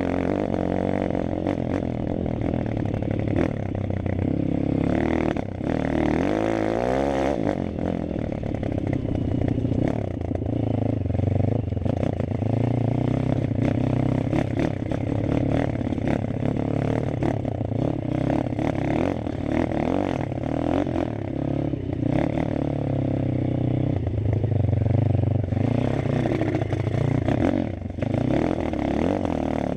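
Malcor XZF 140 pit bike's four-stroke single-cylinder engine running under way on a rough dirt trail, its revs rising and falling with the throttle, with a clear climb in revs about six seconds in. Frequent knocks and clatter from the bike over bumps run alongside it.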